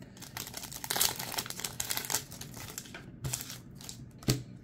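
Foil Pokémon booster pack wrapper crinkling as it is torn open and the cards are pulled out, with a single sharp click near the end.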